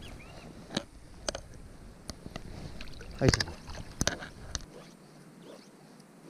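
Water splashing and sloshing as a rainbow trout is held and released by hand in shallow river water, with a few sharp splashes, the loudest just past the middle. A little after two-thirds of the way in it gives way to a quieter, fainter sound.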